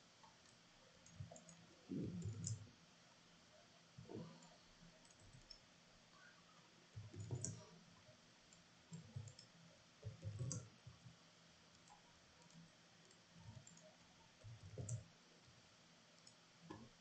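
Faint, scattered computer-mouse clicks, each a short tick with a soft low thump, every second or two against quiet room tone.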